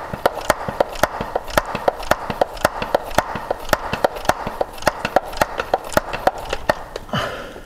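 Rapid, evenly spaced clicking, about four a second, over a steady hiss, from the hand pump of a pressure-sprayer bottle being worked fast to force gear oil down a pipe into a differential. The clicking stops shortly before the end.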